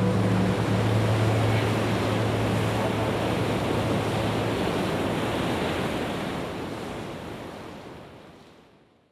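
A steady rushing noise like surf from the background soundtrack, with a low held music tone dying away in the first few seconds. The rushing fades out gradually to silence near the end.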